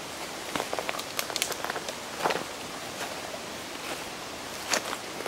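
Footsteps crunching on loose stones and dry leaf litter, a handful of uneven steps with the loudest about two seconds in and again near the end, over a steady background hiss.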